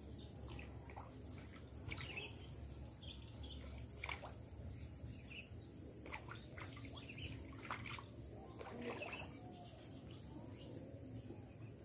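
Faint outdoor ambience: a few short, scattered bird chirps over a steady low rumble.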